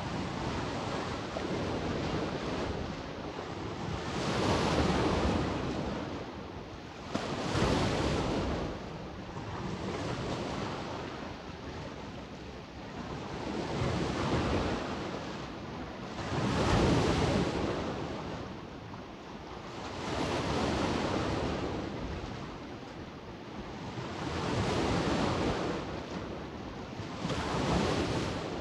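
Adriatic sea waves washing onto the shore, swelling and receding about every three to four seconds, one wave breaking more sharply about seven seconds in.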